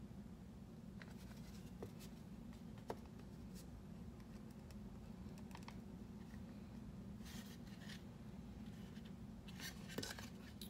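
Faint scratching strokes of a small hand tool on a wooden block, in short spells about two-thirds of the way in and again near the end, with a few light taps earlier. A low steady hum lies underneath.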